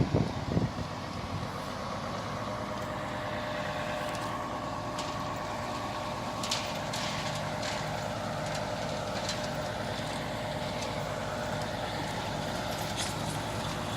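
An engine running steadily, with a thin steady whine over it and scattered light clicks. A few knocks come right at the start.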